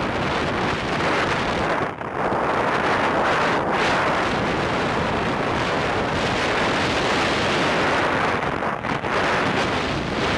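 Wind rushing over the microphone of a moving motorcycle: a loud, steady rush that drops out briefly about two seconds in and again near the end.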